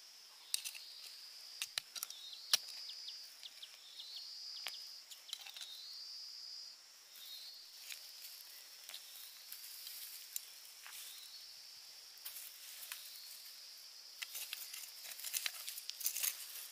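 Insects chirping in a steady high-pitched band that pulses and trills, with scattered sharp clicks and small knocks over it.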